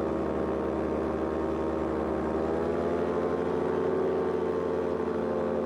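Paramotor's two-stroke engine and propeller running steadily in flight, its pitch rising a little about two to three seconds in as it speeds up slightly.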